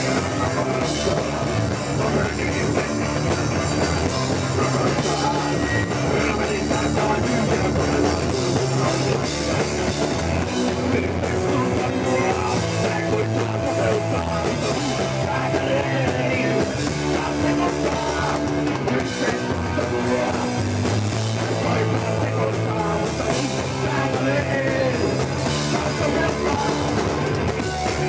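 Hardcore punk band playing live: a drum kit with crashing cymbals and amplified guitars, loud and continuous, the chords changing every second or two.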